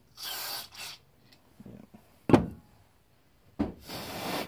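Breath blown by mouth through a small-engine carburetor's jet passage, two short hissing puffs, checking that the passage is clear. A sharp thump, the loudest sound, comes about two seconds in.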